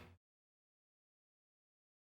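Near silence, a gap between sound effects. The fading tail of a buzzer sound dies away within the first moment.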